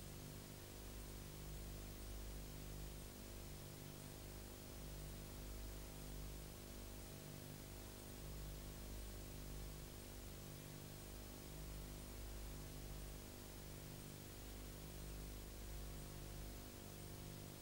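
Steady low hum with hiss, the 150 Hz part of the hum pulsing about once a second. There is no other sound: the silent film has no soundtrack, so only the transfer's background noise is heard.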